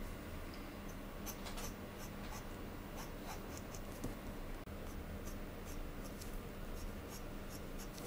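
Pen nib scratching on paper in short inking strokes: a faint, dry scratching with small irregular ticks.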